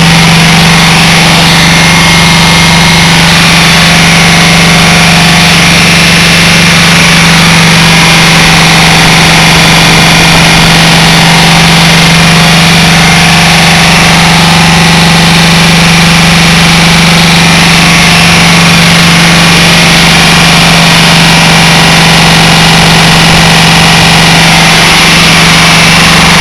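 Lombardini LD 325 single-cylinder air-cooled diesel engine of a portable generator running steadily under load from a window air conditioner on high heat. It is pretty loud, with a strong steady low hum.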